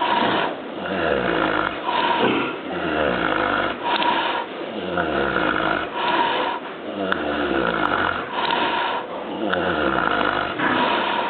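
A sow snoring in an even rhythm, about one snore every two seconds.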